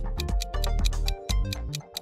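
Quiz countdown music with a steady clock-like ticking, about five ticks a second. The bass-heavy backing drops out near the end, leaving the ticks over a held tone.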